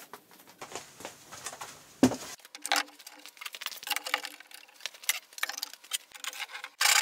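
Light scattered clicks and taps as a tape measure and a wooden slab are handled on a workbench. Near the end a loud, steady rubbing of a hand tool working along a maple board starts abruptly.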